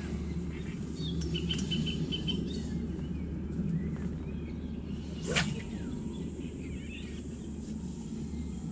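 Carp rod swished through a cast, a single sharp whoosh about five seconds in, followed by about three seconds of high hiss as the line runs off the reel spool. Birds chirp briefly early on over a steady low rumble.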